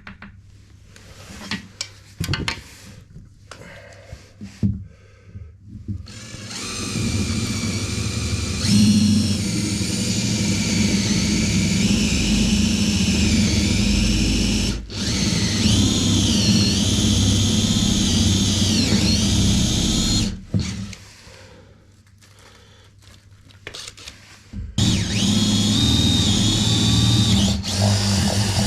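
A handheld power tool runs with a steady whine for about fourteen seconds, its pitch dipping several times as it bites under load. It stops, then runs again for a few seconds near the end. Light knocks and clicks of handling come before it starts.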